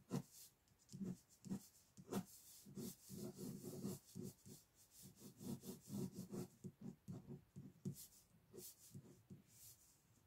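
Ink pen scratching faintly on paper in quick, repeated sketching strokes, most of them bunched together in the middle.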